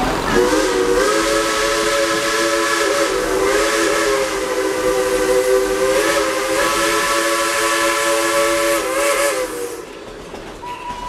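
Locomotive whistle on a moving train blowing one long blast, a chord of several notes held for about nine seconds with slight wavers before it stops near the end. Under it, the hiss and rumble of the open passenger cars rolling along the track.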